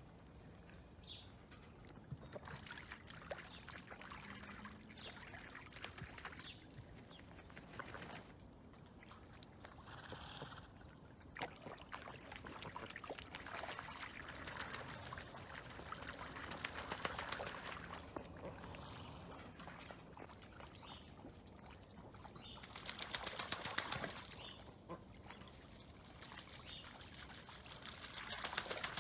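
Ducks feeding in water, dabbling and splashing in a dense, rapid patter that swells and fades, loudest a little past the middle and again near the end.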